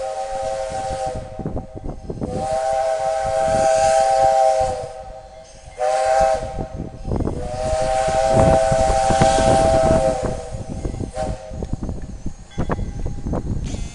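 Flagg Coal 75, a saddle-tank steam locomotive, blows its chord-like steam whistle in the grade-crossing pattern: long, long, short, long. The first blast is already sounding and ends about a second in. Chuffing exhaust and steam hiss run underneath as the engine approaches, and carry on alone after the last blast ends, about ten seconds in.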